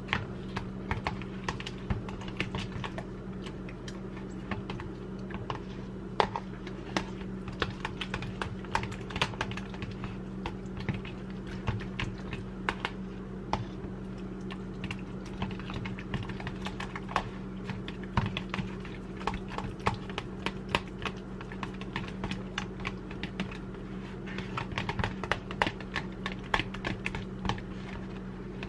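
A metal fork clicking and scraping against a plastic food container as ranch dressing, buffalo hot sauce and cream cheese are stirred together: many irregular quick clicks, over a steady low hum.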